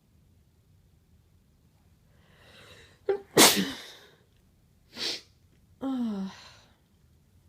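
A person sneezing: a breathy, hitching intake of breath builds up, then one loud sneeze bursts out about three and a half seconds in. A short breathy burst follows, then a brief voiced sound that falls in pitch.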